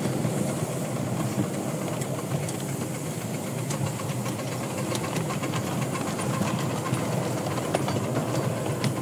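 Miniature steam locomotive running with a steady hiss of steam escaping around its cylinders, with scattered clicks of the wheels on the rails.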